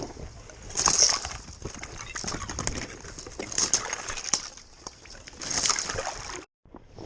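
Water splashing and sloshing in irregular bursts, with small clicks and rustles of handling; the sound drops out briefly near the end.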